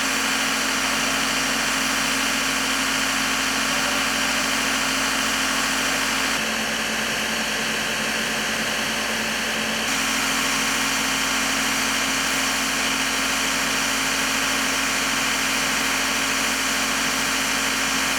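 An engine running steadily at idle with a constant hum. Its tone shifts slightly for a few seconds in the middle.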